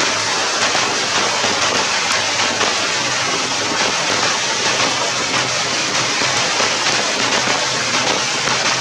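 Steady rain falling on grass and wet ground, a constant even hiss with no let-up.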